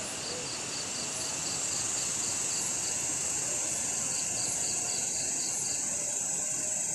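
Night insects, crickets among them, in a steady high-pitched drone, with two runs of rapid chirps at about four or five a second.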